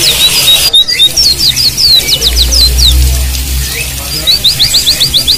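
A flock of white-eyes (pleci) chirping in quick runs of short, high, rising and falling notes. A steady hiss of running water cuts off suddenly under a second in.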